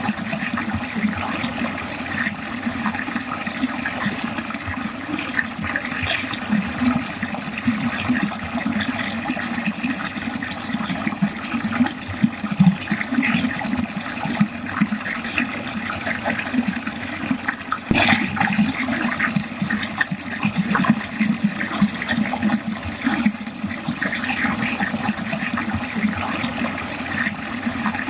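Water running steadily down a drain, a continuous splashing and gurgling flow.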